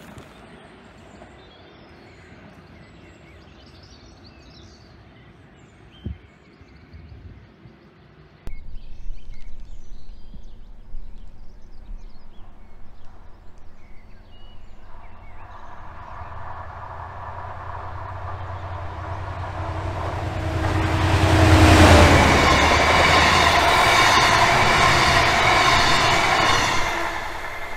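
Class 68 diesel locomotive hauling a passenger train, coming closer and passing. The noise builds over about ten seconds, peaks with a drop in pitch as it goes by, stays loud and then fades near the end. Before that, a few seconds of faint birdsong.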